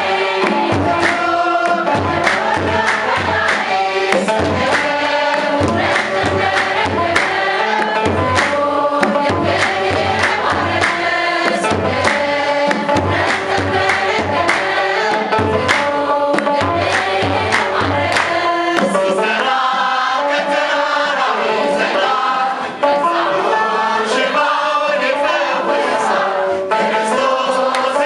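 Church choir of many voices singing a hymn in unison, accompanied by steady beats on a large kebero drum; the drum stops about two-thirds of the way through and the choir sings on.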